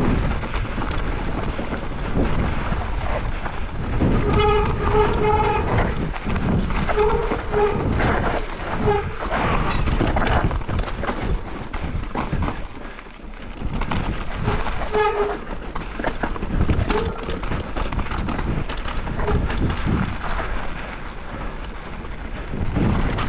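Mountain bike descending a rough downhill trail: a constant rumble and rattle of tyres and bike over rocks and dirt, with wind on the microphone. Short horn-like pitched tones break in now and then, briefly, about half a dozen times.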